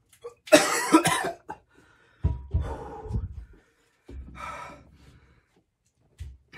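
A man coughing and blowing out hard breaths in pain from the burn of an extremely hot pepper jerky. A loud harsh cough about half a second in, then two quieter rounds of coughing and heavy breathing.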